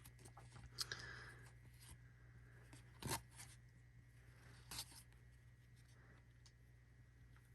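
Faint handling of hockey trading cards: soft slides and a few short flicks as the cards are moved through by hand, over a low steady hum.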